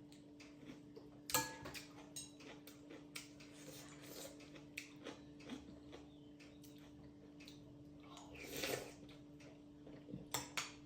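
Close-up eating sounds from noodles: small mouth clicks and chewing, with a longer slurp about eight and a half seconds in, over a faint steady hum.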